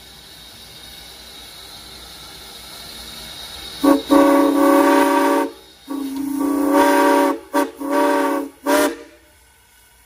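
Southern Pacific six-chime steam whistle on a steam locomotive, blown in a steam test. Steam hisses steadily at first. About four seconds in the whistle sounds its chord in a run of blasts, two long and several short, and stops shortly before the end.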